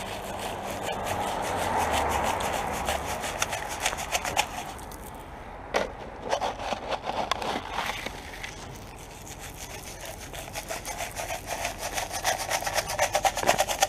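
Salt being spread over pavement: a steady gritty scraping packed with rapid ticking, which grows busier near the end.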